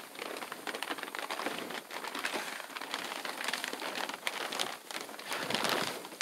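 Plastic sheeting crinkling and rustling as it is handled, a dense crackle of small clicks that swells louder near the end.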